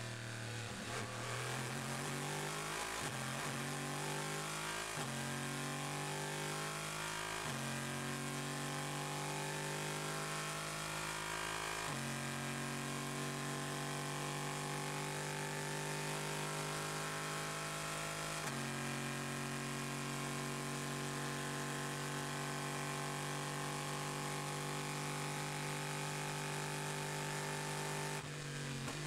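Chevrolet Corvette C7.R's 5.5-litre V8 heard onboard at full throttle, pulling up through the gears: the engine note rises steadily in each gear, with quick upshifts about 3, 5, 7.5, 12 and 18.5 seconds in, each gear held longer than the one before. Near the end the note drops sharply as the car lifts off.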